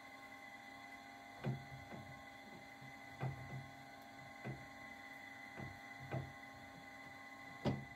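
Metal clunks and clicks from a three-jaw lathe chuck as its jaws are handled and taken out, with about eight separate knocks and the loudest one near the end. A steady faint hum runs underneath.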